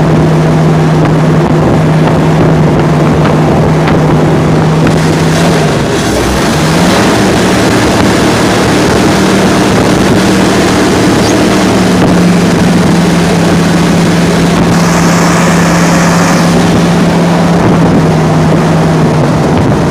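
Massey Ferguson 300 combine's carbureted gasoline engine running steadily on its freshly rebuilt fuel system. Its speed dips briefly about six seconds in, picks up a little faster, then eases back about halfway through.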